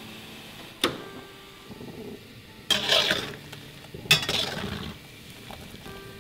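A metal skimmer ladle working in a pan of bakso meatballs in hot water, clinking against the pan: a sharp knock about a second in, then two longer bursts of scraping and sloshing as the meatballs are scooped, the second starting with a hard clink.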